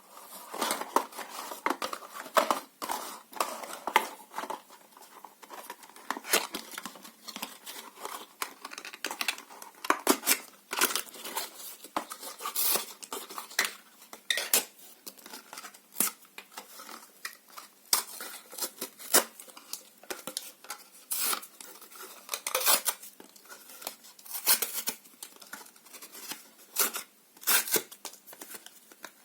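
Paper and cardboard being torn and crumpled by hand, close up: an irregular run of sharp crackles and rips with short pauses between them.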